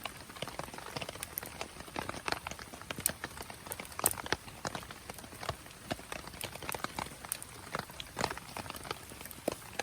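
Campfire wood crackling, with irregular sharp pops, some louder snaps about three and four seconds in.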